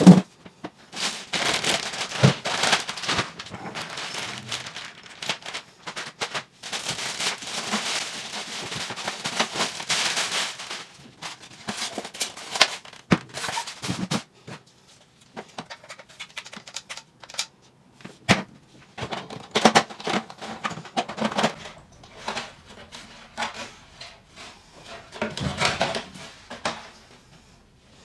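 Thin plastic packaging crinkling and rustling as it is pulled off an RC truck's body and rear wing, for about ten seconds. After that come scattered clicks and knocks as hard plastic parts are handled and set down on a wooden table.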